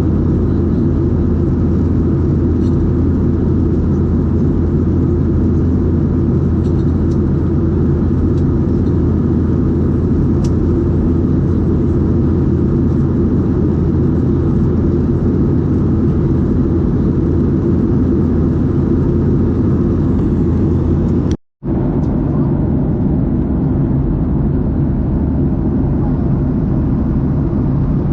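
Steady in-flight drone of a Boeing 737-800 heard inside the cabin: its CFM56 engines and the rush of air past the fuselage. It cuts out for an instant about 21 seconds in and resumes with a slightly different low hum.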